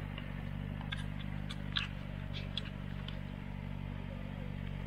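Jeep engine running steadily at low speed on a rough dirt track, a low even hum, with a few light clicks and rattles between about one and three seconds in.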